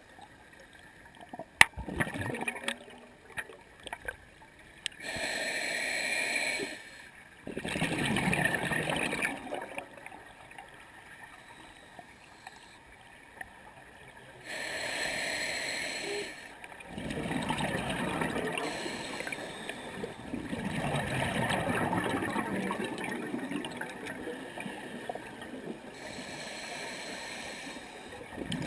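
A scuba diver breathing through a regulator underwater: surges of breath and exhaled bubbles lasting one to three seconds, repeating every few seconds. A sharp click sounds about one and a half seconds in.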